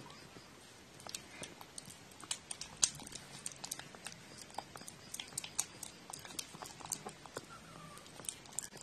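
A cat eating wet food from a plate: quick wet smacking and clicking of chewing and licking, with a few faint murmuring sounds between mouthfuls.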